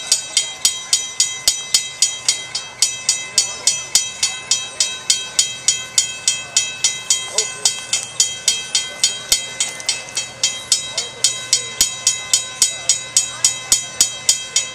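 Railroad crossing bell ringing steadily, about three and a half strikes a second, warning of an approaching train.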